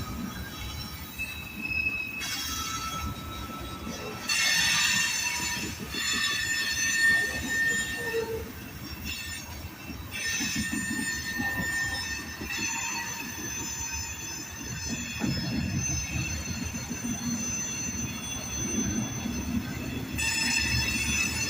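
Mixed freight train rolling past with a steady low rumble, its wheels squealing in high tones that come and go.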